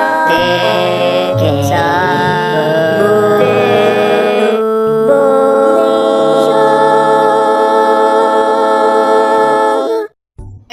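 Short theme music with sustained choir-like sung chords. The held chord changes about halfway through and the music cuts off just before the end.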